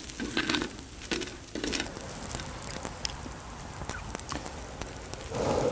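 Metal spoon scraping and scooping noodles off a hot griddle pan into a stainless steel bowl, with scattered small clinks over faint sizzling. A brief louder muffled rustle comes near the end.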